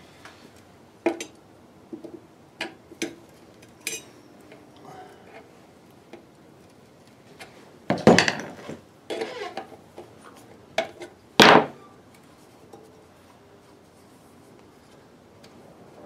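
Metal clinks and knocks from working the wing nuts off the sheet-metal base of a kerosene heater, a dozen or so at irregular intervals, with two louder scraping clanks about eight and eleven seconds in.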